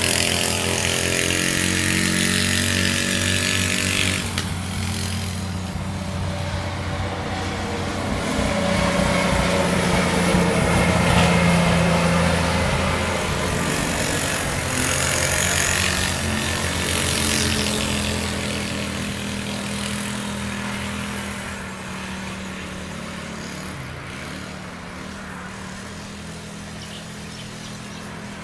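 Polaris RZR 170 youth buggy's small single-cylinder engine running and revving as it slides around on wet ground, with a strong hiss over it. It grows loudest a little before the middle and fades gradually toward the end.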